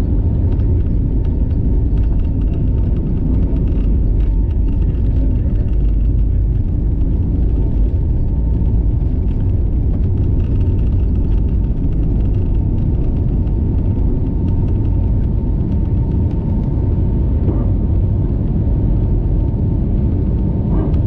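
Steady low cabin rumble of an Airbus A320neo airliner, engine and airflow noise, with a faint steady whine above it.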